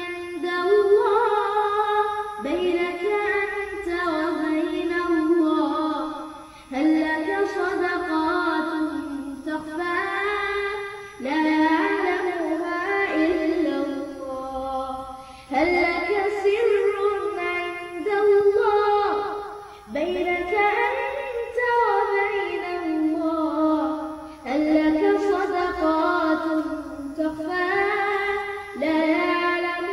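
Background music: a song with a sung melody, in phrases of about four seconds each.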